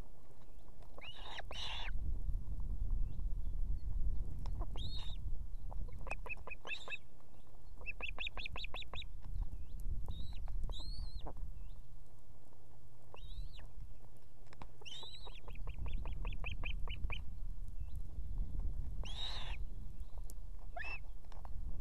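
Ospreys calling at the nest: repeated sharp whistled calls that rise and fall, with three quick runs of short chirps at about eight a second, over a low rumble of wind on the microphone.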